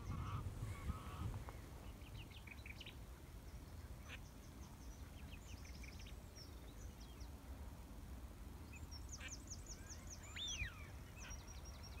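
Faint wetland birdsong: distant geese honking, with scattered thin, high calls of small birds and a quick run of short high notes late on, over a steady low rumble.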